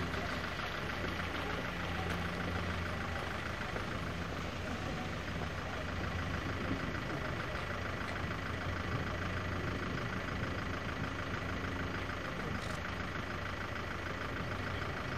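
Motor launch engine running steadily at an even, unchanging pitch, heard from on board.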